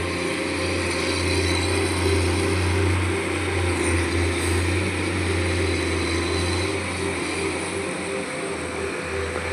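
Excavator's diesel engine running steadily, a low drone that swells slightly a few seconds in.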